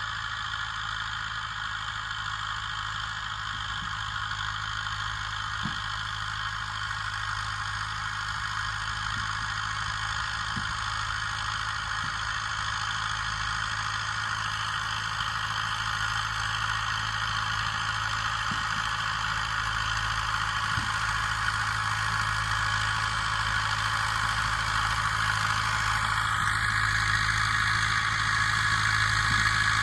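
YuMZ-8040 tractor's diesel engine running steadily under load while ploughing, growing gradually louder.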